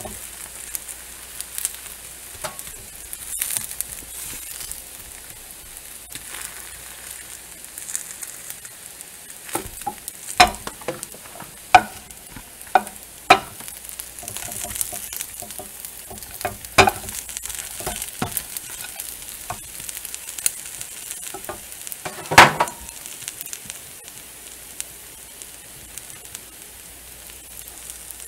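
Burger patty, fries and onion rings sizzling in a nonstick frying pan with a steady high hiss. A run of sharp utensil taps and knocks against the pan falls in the middle, with the loudest single knock about three-quarters through.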